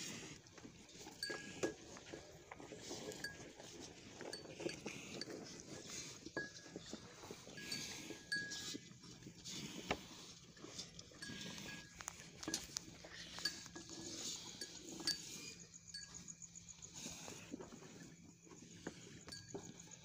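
Black Holstein bull eating loose grain feed from a trough: irregular rustling and knocks, with light metallic clinks now and then.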